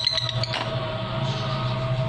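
Lovebird chattering in a fast run of chirps, the 'ngekek' song it is learning, which breaks off about half a second in; a steady low hum continues underneath.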